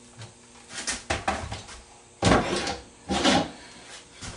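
Handling noise of a deer antler being worked onto a skull plate: a cluster of light knocks, then two louder half-second scrapes about a second apart.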